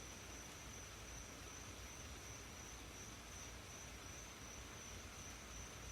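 Steady hiss of heavy rain, with one steady high-pitched tone running over it.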